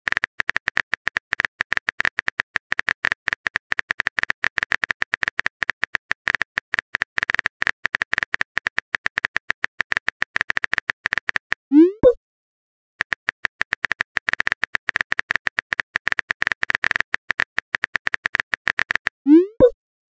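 Rapid clicks of a simulated phone keyboard as a chat message is typed out, in two runs. Each run ends in a short rising pop, the message-sent sound.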